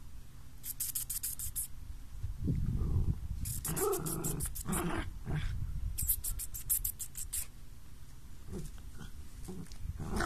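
Two dogs play-fighting, with low, rough growls and grumbles, loudest from about two and a half to five seconds in. Three short bursts of rapid high-pitched ticking come and go.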